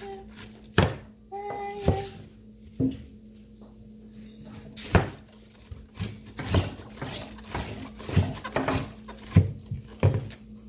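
Kitchen knife cutting through a head of cabbage onto a wooden cutting board: sharp knocks of the blade on the board, a few spaced strokes at first, then a quicker run of cuts about two a second.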